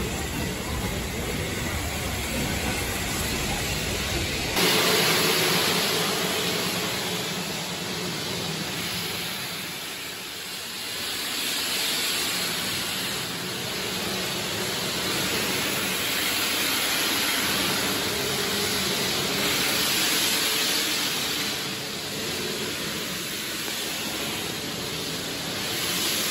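Steam locomotive at a heritage railway: a low rumble for the first few seconds that cuts off suddenly, then a steady hiss of steam that swells and eases several times.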